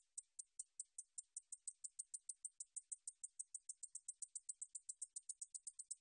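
Japanese bush katydid (Ducetia japonica) stridulating: a faint, steady run of short, high-pitched ticks that speeds up from about five to about eight a second.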